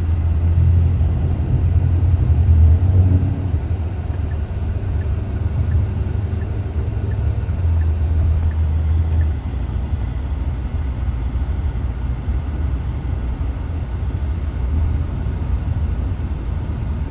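Steady low rumble of a car being driven, heard from inside the cabin, a little louder in the first few seconds.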